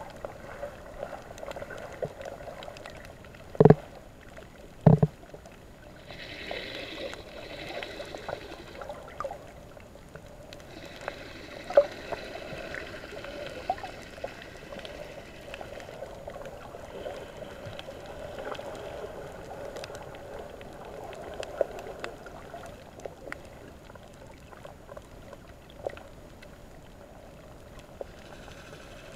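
Underwater sound picked up by a submerged camera: muffled water movement and bubbling. Two sharp knocks come about four and five seconds in, with a few fainter clicks later.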